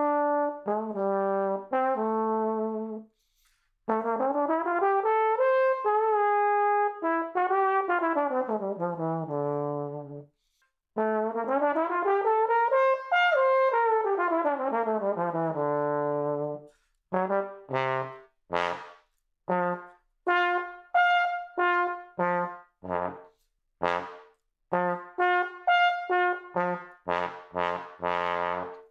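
Tenor trombone played through a Bach 6½ mouthpiece to show its tone and range. It opens with a few held notes, then plays two slurred phrases that climb high and come back down. It ends with a string of short, separately tongued notes from low to high, quickening near the end.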